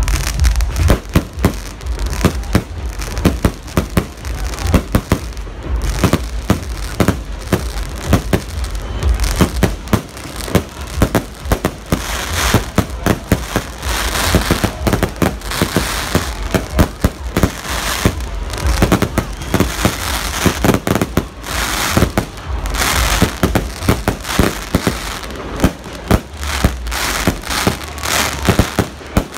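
Dense barrage of aerial display fireworks: rapid, overlapping shell bursts and bangs, with stretches of crackling from the glittering stars.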